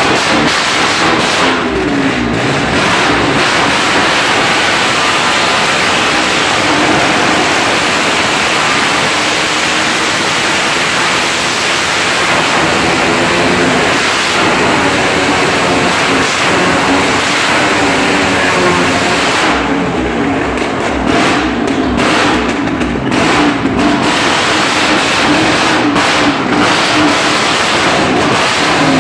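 Motorcycle engine noise in a wall-of-death drum: loud and continuous, the pitch rising and falling as the engines rev while riding the wall.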